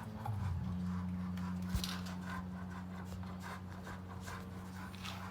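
A dog panting in quick, even breaths, about three a second, over a steady low hum that drops slightly in pitch about half a second in.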